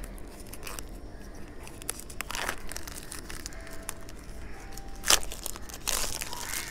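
Thin plastic shrink-wrap being peeled and pulled off a cardboard phone box, crinkling and tearing, with louder crinkles about two seconds in, at about five seconds, and near the end.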